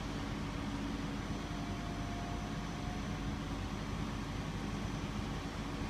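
Liebherr MK88 mobile construction crane running with a steady mechanical hum under a constant hiss, and a faint brief whine about two seconds in.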